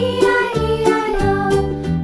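Upbeat children's background music, with a steady beat, a bass line and a sung or synthesized melody.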